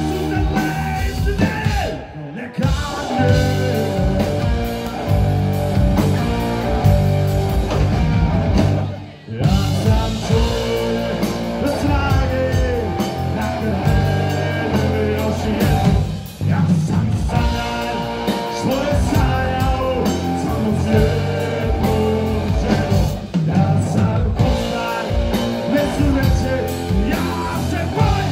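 Live rock trio playing, with electric guitar, bass guitar and drum kit under a man's lead vocal. The band cuts out briefly four times, about every seven seconds, before playing on.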